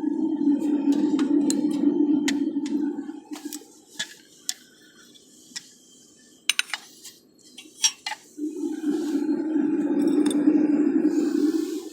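Metal clinking and tapping as scrap aluminum and tools are handled at a melting furnace, with two stretches of a steady low rushing noise of a few seconds each, one at the start and one from about two-thirds of the way in.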